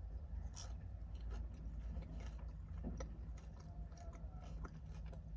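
Faint mouth sounds of a person chewing food, with scattered small clicks and scrapes, over a low steady hum.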